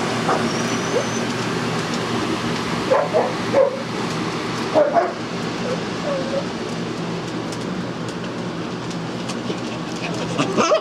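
Small dogs giving a few short barks and yips, in clusters about three and five seconds in, over the steady hum of a fan.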